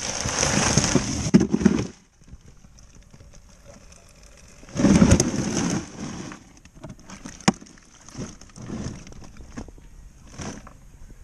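Plastic bag of ice crinkling and shifting inside a cooler, in two louder bursts about two and five seconds in, followed by lighter knocks and rustles as the fish in the cooler are handled.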